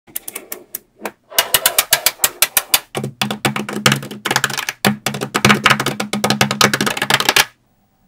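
Small neodymium magnetic balls clicking and snapping together in rapid, dense runs as sheets and strips of them are handled and folded, with short pauses between runs, stopping suddenly about half a second before the end. A low steady hum sits under the clicking in the second half.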